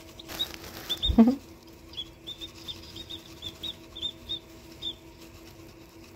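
Newly hatched chicks peeping: a string of short, high cheeps repeated over a few seconds, with a rustle of pine-shaving bedding under a hand near the start. A brief louder, lower sound comes about a second in.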